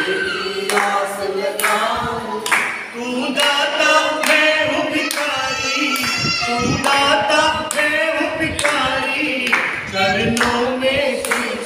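A group of devotees singing a Hindi bhajan together, unaccompanied, with steady rhythmic hand-clapping keeping the beat, a little under two claps a second.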